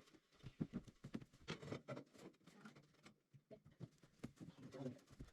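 Faint, scattered light taps and knocks.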